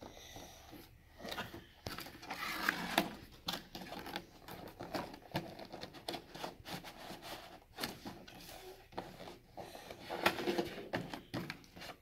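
Cardboard box being handled and opened by hand: irregular taps, scrapes and rustles of the flaps and packaging, with louder clusters of knocks about two seconds in and again near the end.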